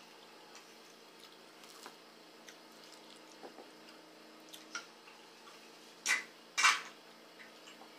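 Close-up eating sounds as meat is eaten off a bone: faint wet mouth clicks and smacks, then two louder sucking slurps about six seconds in.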